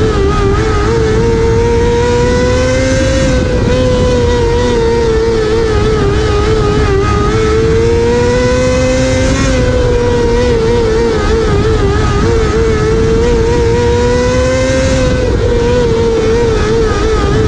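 Onboard sound of a dirt-track sprint car's engine at racing speed. The note climbs down each straight and falls off sharply when the driver lifts for the corners, about every six seconds, lap after lap.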